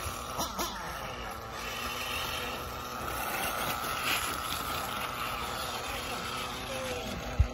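Radio-controlled off-road car running around a dirt track, its motor giving a steady high whine that swells and fades as the car moves. A single sharp thump just before the end.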